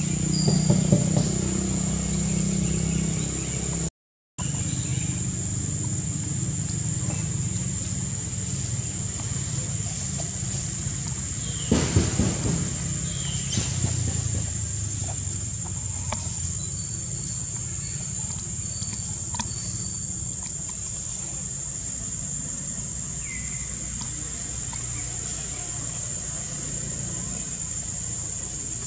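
Steady high-pitched insect drone, like crickets or cicadas, over a low hum. The sound cuts out briefly about four seconds in, and a short clatter of clicks comes about twelve seconds in.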